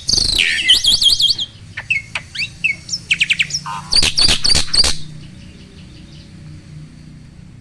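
Jalak starling singing loudly: a quick run of repeated rising-and-falling whistles, then sharp, rapid upward sweeping notes, stopping about five seconds in.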